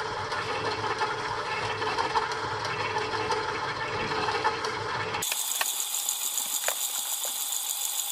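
KitchenAid stand mixer running steadily on low speed, its whisk beating cream cheese and sugar in the stainless steel bowl. About five seconds in, the sound suddenly turns thin and hissy, with a few clicks.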